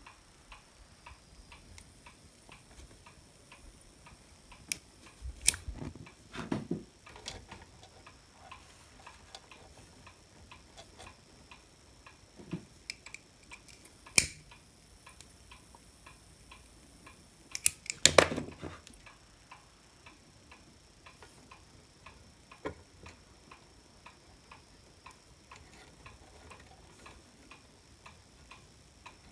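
Faint, steady ticking at an even pace, with a few louder sharp clicks and knocks from handling tools and parts, loudest about 18 seconds in.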